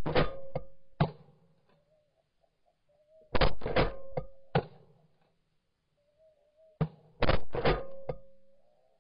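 Shotgun shots in three quick volleys about three and a half seconds apart, each volley a cluster of several sharp reports that die away.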